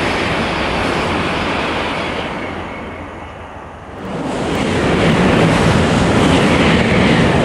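Shinkansen bullet trains passing at high speed on a viaduct. The rushing noise of an E2-series train on the far track fades away. About four seconds in, a louder, steady rush with a deep rumble sets in as an E4-series Max double-decker passes close by.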